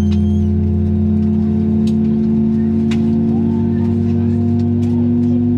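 Airbus A321-231's IAE V2500 turbofan engines running at low power, heard inside the cabin as a steady drone and hum whose main tone slowly rises in pitch. A few faint clicks sound about two and three seconds in.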